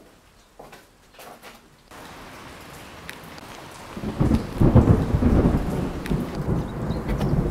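A few soft footsteps on rubble, then steady rain hiss starting about two seconds in, joined about four seconds in by a loud, low rumble of thunder that carries on through the rest.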